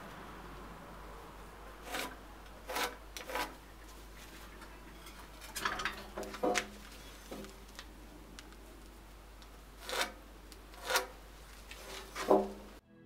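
Short rasping strokes of hand work on wood, about eight of them at irregular intervals, over a faint low hum.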